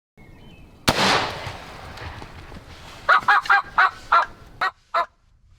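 A single loud bang about a second in that echoes away, then a wild turkey calling in a quick run of about seven notes.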